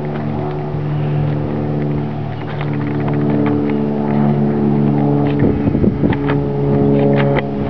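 Airplane engine droning overhead, a steady hum of several tones whose pitch shifts as it passes. A few short clicks about five and a half seconds in.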